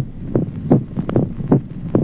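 Recorded heart sounds: a regular heartbeat of short, sharp thumps with an accentuated, reinforced second heart sound.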